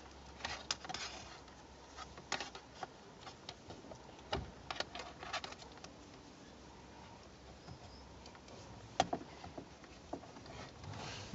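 Scattered light clicks and rustles of a thin dashcam power cable being coiled and bundled by hand, with a sharper click about nine seconds in.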